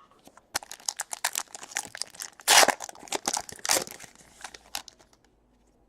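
Trading-card packaging being torn open and crumpled: a run of sharp crinkles and rips, loudest about halfway through, which stop about five seconds in.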